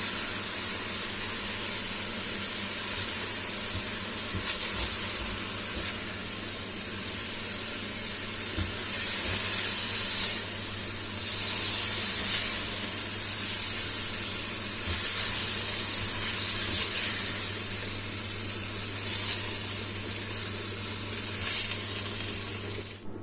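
Smoked beef sizzling in hot oil in a pan, a steady high hiss with a few light clicks of a utensil against the pan; the hiss cuts off abruptly near the end.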